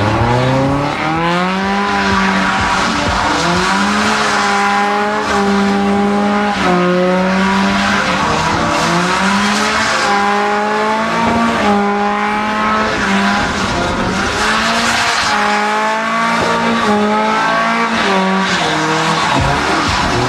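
Westfield kit car's engine revving hard, its pitch rising, holding and dropping over and over, with the rear tyres squealing as the car spins doughnuts in clouds of tyre smoke.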